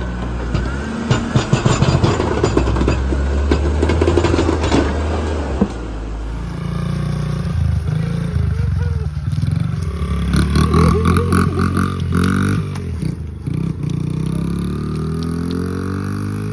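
A lifted Jeep Cherokee XJ's engine running as it crawls over rocks, with clattering and scraping from the tyres on rock. Then a child's small dirt bike engine running, its pitch rising near the end.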